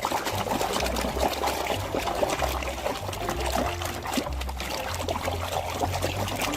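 Water trickling and splashing as a muddy plastic toy is rinsed and scrubbed by hand, with many small splashes and drips.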